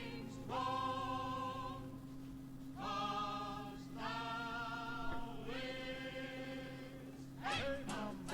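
Background music: a choir-like vocal sound holds about four long chords, each lasting a second or two before the next one comes in.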